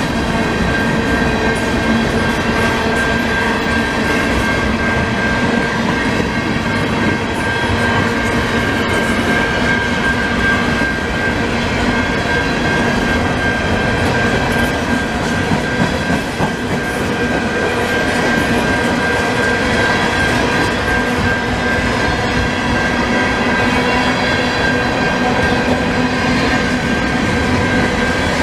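Freight train of covered hopper cars rolling past at speed, steel wheels clattering over the rail joints. A steady, even rumble carries several held tones through it.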